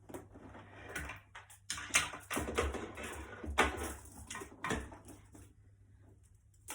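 Rustling and brushing of clothing with a few small knocks, from a person shifting and being handled for a stethoscope examination, busiest in the middle and ending with a sharp click.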